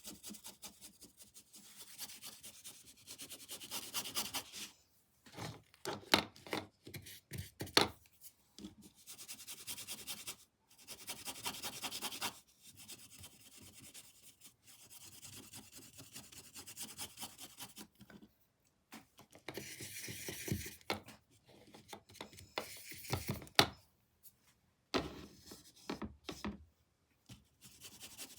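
Paintbrush rubbing and scratching across canvas in quick repeated strokes, with pauses between runs. A few sharp taps or knocks stand out, loudest about eight seconds in and again near twenty-three seconds.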